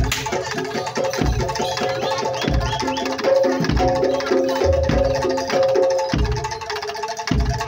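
Live Javanese gamelan-style music: metal percussion rings held notes over hand-drum strokes, with a deep beat about every second.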